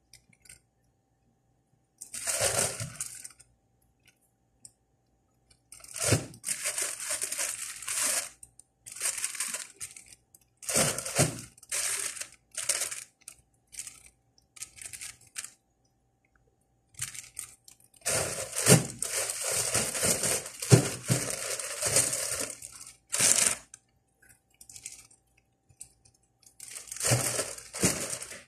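Plastic bags rustling and crinkling as they are handled, in irregular bursts of a second or a few seconds with short quiet gaps; the longest stretch comes about two-thirds of the way through.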